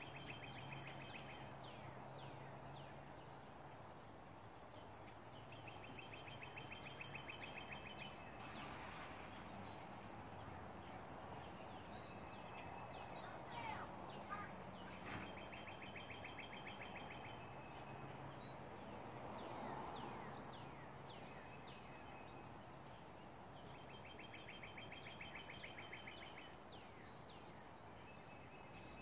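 Faint outdoor birdsong: one bird repeats a short, fast, high trill four times, about every eight to nine seconds, among scattered short chirps, over a faint low hum.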